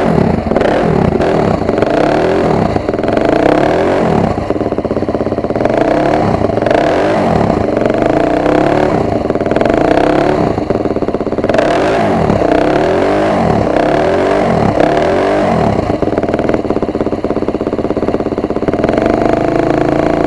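Single-cylinder four-stroke engine of a KTM 250 EXC-F dirt bike running, freshly rebuilt top end being run in. It is revved up and down over and over, then runs steadier near the end.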